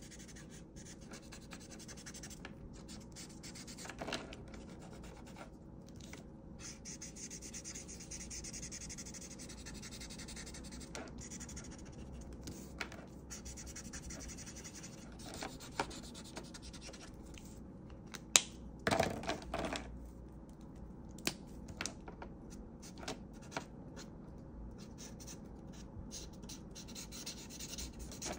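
Ohuhu art marker tip stroking and scratching across paper in repeated strokes. A few clicks and knocks sound in between, with a louder cluster of them about two-thirds of the way through.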